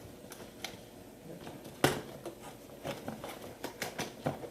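Packaging being opened and handled by hand: scattered rustles and light clicks, with one sharper click a little under two seconds in.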